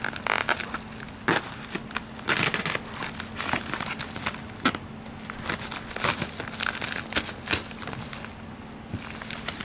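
Plastic Priority Mail mailer crinkling and rustling in irregular bursts as it is handled and slit open with a knife.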